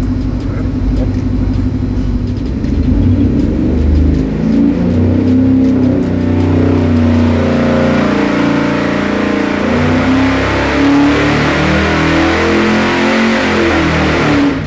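Stock Ford 7.3L Godzilla pushrod V8 making a full-throttle pull on an engine dyno, a baseline run on the stock engine. It builds in pitch and loudness over several seconds, holds at high revs, then drops off sharply at the end.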